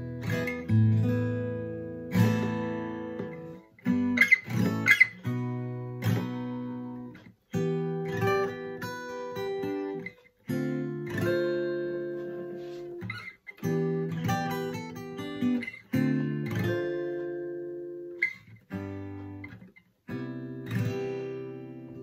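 Fender DG-60CE steel-string acoustic guitar strung with Ernie Ball Earthwood bronze extra light 10-50 strings, strummed in chords that are left to ring and fade, with a few brief pauses between phrases. Picked up by a phone's microphone.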